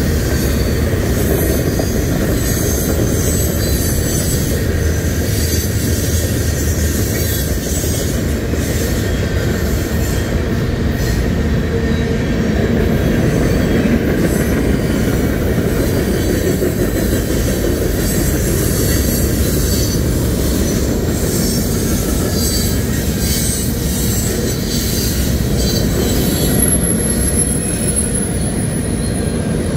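Freight train rolling past at close range: a steady rumble of steel wheels on the rails, with faint high wheel squeal and a thin high squeal near the end.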